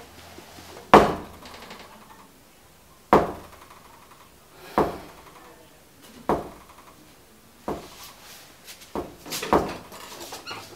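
Slow, irregular knocks on a wooden door, about seven, each dying away over about half a second, with a quicker few near the end.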